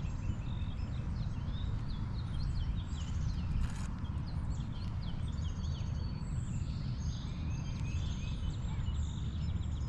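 Wind rumbling on the microphone with birds chirping in many short high calls.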